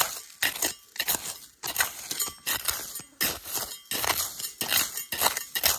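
Small pointed steel trowel scraping and digging into dry, gravelly soil, about three strokes a second at an uneven pace.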